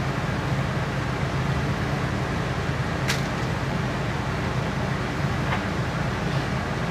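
Steady low mechanical hum, with a single sharp click about three seconds in.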